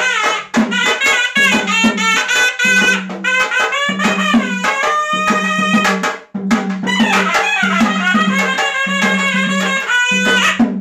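Sannai, a double-reed pipe, playing a wavering, ornamented folk melody over a low steady note, with drum strokes. The playing breaks off briefly about six seconds in, then resumes.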